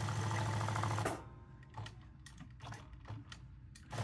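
Jack S5 industrial sewing machine stitching a leather patch onto a cap at its raised speed setting of 800 stitches a minute: a fast, even rattle of stitches for about the first second. It stops, a few light clicks follow, and it starts again near the end.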